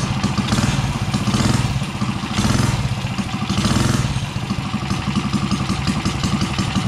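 Coleman 3 hp OHV single-cylinder minibike engine running on a freshly fitted 19 mm Mikuni-style slide carburetor, idling with three short throttle blips in the first four seconds.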